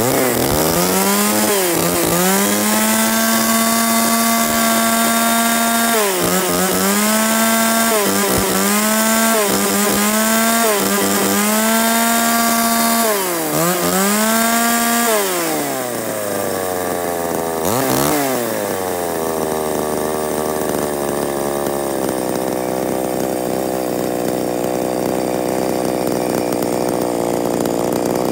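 Small 33cc two-stroke chainsaw engine revved to high speed again and again, each rev held about a second or two with quick drops between. About fifteen seconds in it falls back to idle, blips once briefly, then idles steadily.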